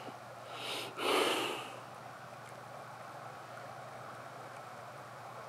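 A person breathing close to the microphone: a short breath in, then a louder heavy breath out, like a sigh, about a second in.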